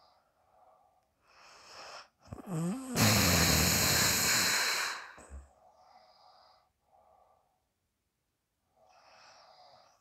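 A sleeping person snoring: a wavering snore about two and a half seconds in runs into a long, loud hissing breath of about two seconds, followed by several softer breaths.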